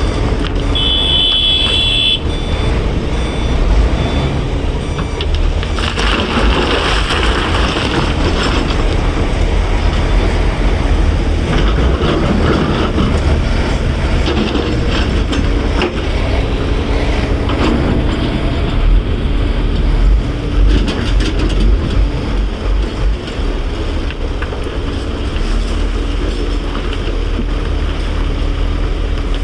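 Heavy diesel machinery running steadily as an excavator loads a dump truck. A short high beep comes about a second in, and there are louder noisy stretches around six and twelve seconds in.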